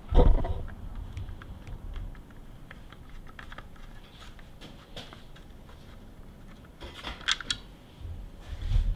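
Scattered light clicks and taps of a hard plastic snowmobile handguard being handled while a T20 Torx screwdriver backs out a small screw. There is a bump just at the start and a short run of sharper clicks around seven seconds in.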